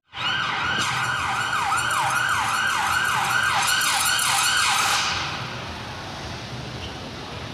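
Police car siren on a fast yelp, the tone sweeping up and down about three times a second, then cutting off about five seconds in, leaving steady traffic noise.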